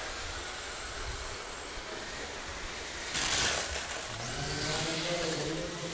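Radio-controlled cars running on the track: a steady motor and tyre hiss, with a louder rush about three seconds in as a car passes close.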